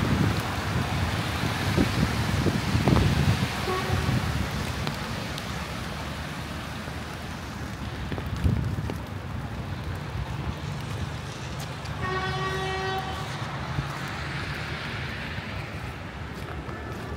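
Wind buffeting the microphone over a low city-traffic rumble. A vehicle horn toots briefly about four seconds in, then sounds one steady note for about a second past the middle.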